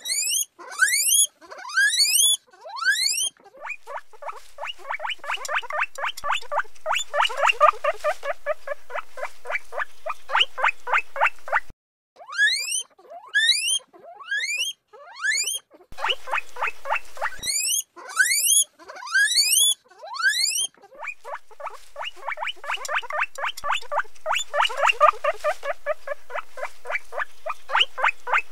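Guinea pig squeaking (wheeking): runs of loud, rising whistled squeals, each run giving way to a long fast series of shorter squeaks at about four a second. The pattern comes twice.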